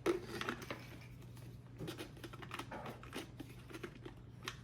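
Small irregular clicks and rustles of hands handling a toy dinosaur figure and its plastic and cardboard packaging.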